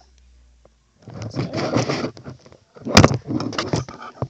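Handling noise: fingers scraping and rubbing over the recording device close to its microphone. It comes in loud, rough bursts after about a second of near silence, with a sharp click about three seconds in.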